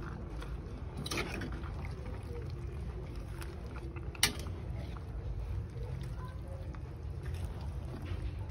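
Pot of soup simmering on the stove, heaped with Malabar spinach leaves, over a steady low hum. A single sharp clink comes about four seconds in.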